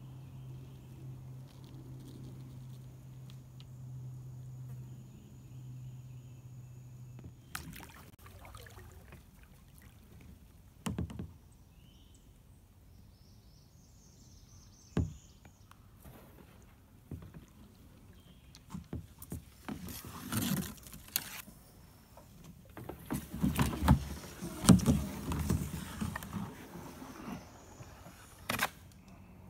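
Kayak being paddled: the paddle dips and splashes in the water, with a few sharp knocks, loudest in a run of strokes late on. A low steady hum sits under the first seven seconds.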